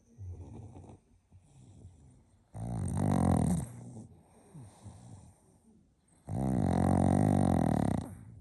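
Sleeping pug snoring: two loud snores about three and a half seconds apart, each lasting one and a half to two seconds, with quieter breaths between them.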